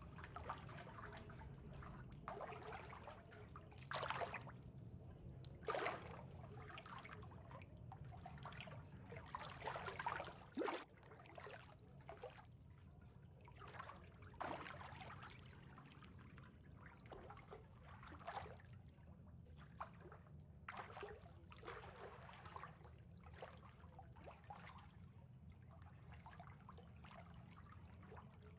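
Faint water trickling and splashing in irregular soft swells, a little louder about four, six and ten seconds in, over a steady low hum.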